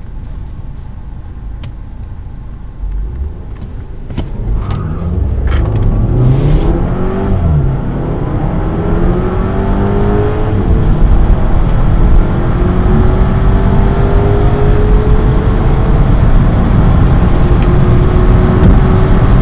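A turbocharged 2.0-litre four-cylinder petrol car accelerating hard from a standstill, heard from inside the cabin. The engine note climbs in pitch through each gear and drops back at the gear changes, getting louder over the first several seconds. A few sharp clicks come in the first six seconds.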